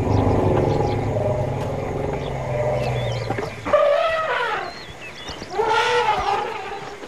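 African elephants calling: a deep, steady rumble for the first half, then two higher, wavering trumpet calls, one about four seconds in and one about six seconds in. The herd is calling around a mating pair.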